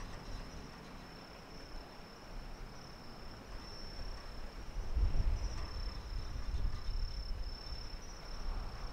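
Crickets chirping in a steady, high-pitched chorus, with a low, uneven rumble underneath that grows stronger about halfway through.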